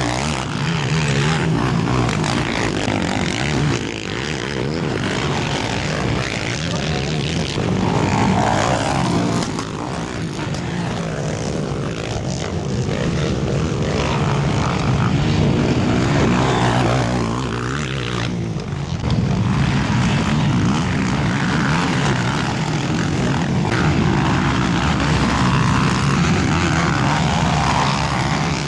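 Several racing quad ATV engines running together, the drone swelling now and then as riders rev them.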